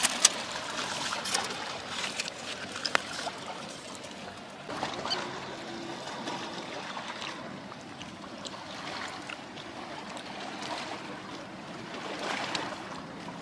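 Intermittent crinkling of aluminium foil and banana leaf as the grilled fish packet is opened and picked at by hand, over a steady background of lapping water.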